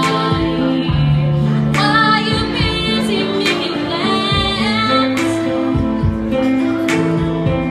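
A woman singing into a microphone over instrumental backing music, holding long notes with a wavering vibrato.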